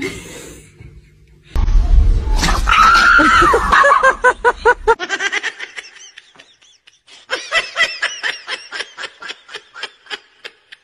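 People laughing: a loud fit of laughter from about a second and a half in, then later a quick run of short "ha-ha" laughs, several a second.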